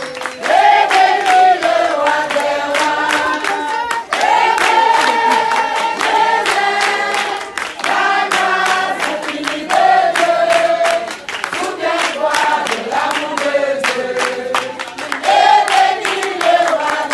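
A choir of voices singing together in sustained, changing notes over a steady rhythmic beat.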